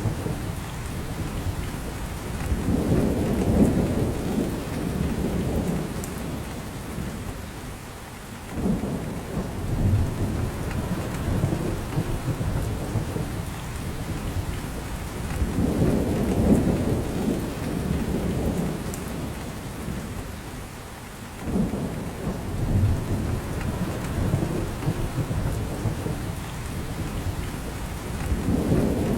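Rain falling in a spruce forest, a steady patter with drops falling from the branches. Under it, a low rumble swells and fades about every thirteen seconds.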